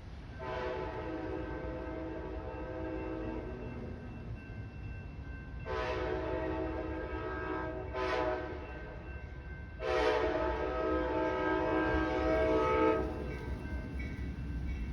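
Approaching Amtrak train's locomotive horn sounding a chord of several steady tones in the long, long, short, long pattern: the standard grade-crossing signal. A low steady rumble sits beneath.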